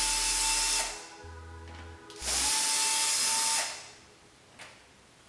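Power drill run twice in short bursts, a steady motor whine each time, backing out the screws that hold a rear parcel-shelf speaker.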